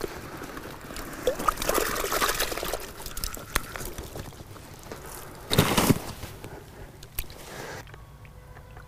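Water pouring and trickling out of a mesh fishing keepnet as it is lifted and drained over a bucket, with a brief louder burst about five and a half seconds in.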